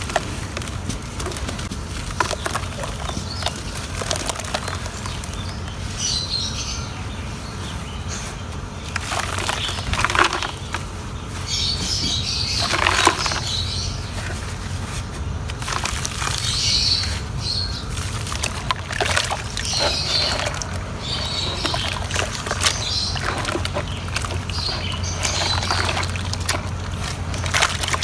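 Water-soaked chunks of pure cement being crumbled, with irregular soft cracks and crumbling crackles and louder spells of dense crumbling about a third and halfway through, over a steady low hum.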